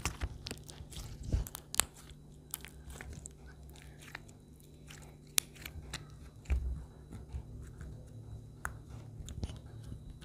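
Homemade glue slime being squeezed and stretched by hand, giving irregular sticky clicks and pops.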